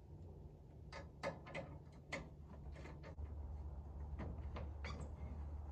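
Irregular metallic clicks and taps from a small ratchet wrench working the bolts of an RV's fold-out step assembly, about one every third of a second with short pauses. A steady low hum runs underneath from about three seconds in.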